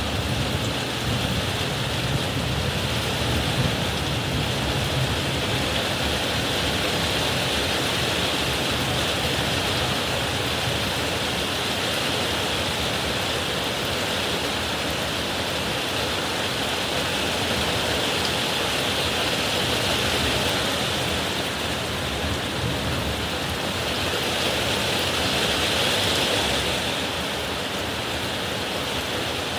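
Heavy rain pouring steadily in a summer thunderstorm shower, a dense hiss of falling water. A low thunder rumble fades out over the first few seconds.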